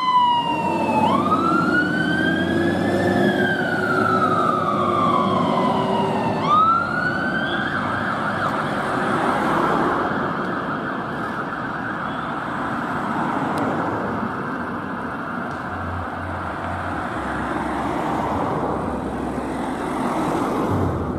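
Volvo FL fire engine's siren on an emergency run, wailing slowly down and up in pitch twice. After about eight seconds it changes to a faster, blurred warble, with the vehicle's running noise beneath.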